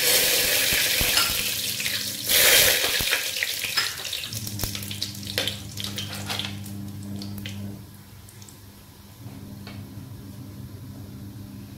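Whole spices (cardamom, cloves, cinnamon sticks, bay leaves) sizzling in hot mustard oil in an aluminium pressure cooker. A loud hiss surges again about two and a half seconds in, then settles into scattered crackles and pops, with a low steady hum underneath.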